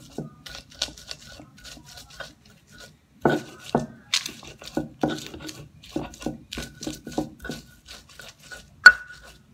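Stone pestle (ulekan) crushing and grinding fried chillies and tomatoes in a stone mortar (cobek): irregular scrapes and knocks of stone on stone, about two a second, with one sharp knock near the end.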